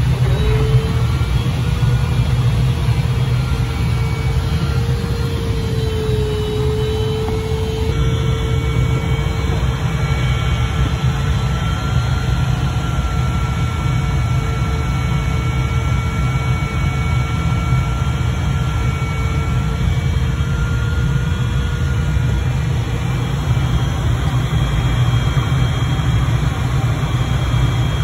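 Steady airflow noise inside the cockpit of a Grob Twin Astir two-seat glider in flight, mostly a low rumble, with a faint thin tone held steady above it.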